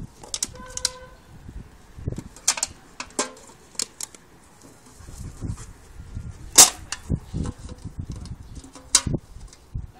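A dog mouthing and biting an aluminium beer can, giving irregular sharp clicks and clanks of the can, the loudest about two-thirds of the way through.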